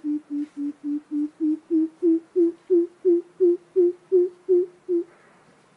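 Greater coucal calling: a long series of deep, hollow 'boop' notes, about three a second, rising slightly in pitch and stopping about five seconds in.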